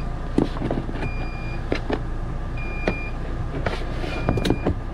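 An electronic beep repeats about every second and a half over a steady low hum. Several sharp clacks of a staple gun come through as carpet is fastened along the RV slide-out's floor guide.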